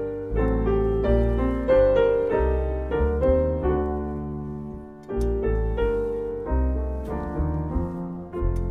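Slow piano music: chords and deep bass notes struck one after another, each fading away before the next.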